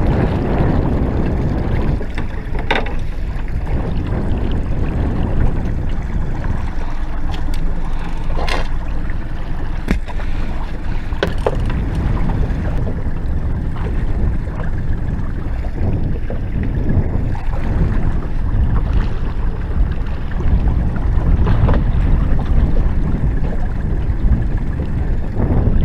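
Wind buffeting the microphone and water splashing around a small boat's hull, with a few sharp knocks as the landing net holding the zander is brought aboard.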